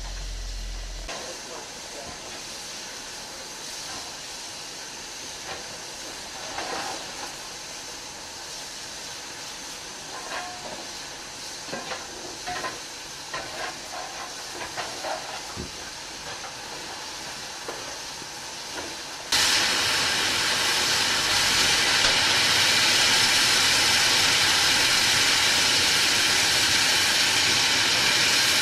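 Ex-Port Talbot Railway 0-6-0 saddle tank steam locomotive No. 813: a low hiss with scattered faint clanks, then, about two-thirds of the way through, a sudden change to a loud, steady steam hiss.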